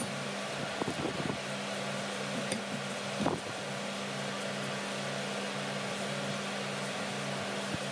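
Chopped red onion swept by hand across a wooden cutting board and into a glass bowl of chopped cabbage, with a few light scrapes and knocks about a second in and again after three seconds. A steady machine hum, like a fan, runs underneath and is the loudest sound.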